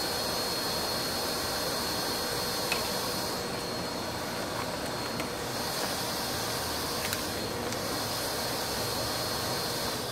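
Wet/dry shop vacuum running with a steady rush of air and a thin high whine, then switched off near the end and winding down.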